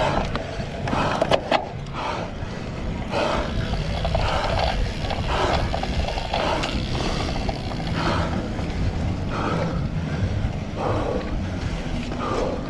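Cyclocross bike rolling over rough, bumpy ground with a steady low rumble, and the rider's heavy breathing coming about once a second. A couple of sharp rattles come about a second and a half in.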